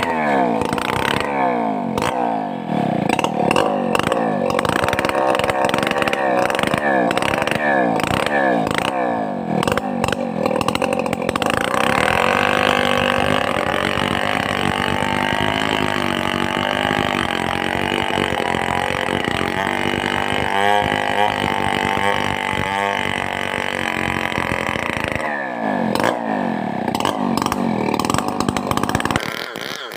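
Stihl 070 two-stroke chainsaw revving up and down repeatedly, then held at a steady high speed under load for about thirteen seconds as it cuts timber, then revving up and down again before dropping back near the end.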